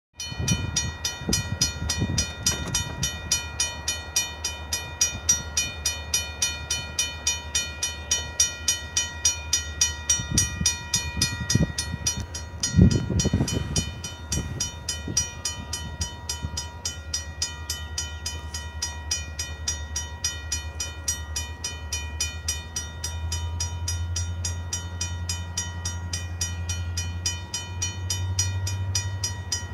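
Railroad crossing warning bell ringing continuously in rapid, even strikes while the crossing signals are active. A low rumble swells in over the last several seconds, and there is one louder thump about halfway through.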